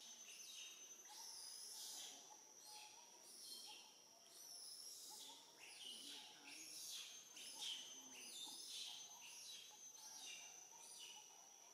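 Faint birds chirping in quick runs of high, downward-sweeping notes, over the steady high drone of insects.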